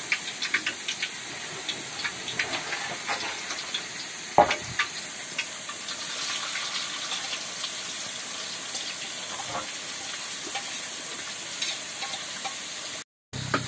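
Vegetable leaves sizzling in a pan over a wood fire as they are stirred, with scattered clicks and scrapes of the utensil and one sharper knock about four seconds in.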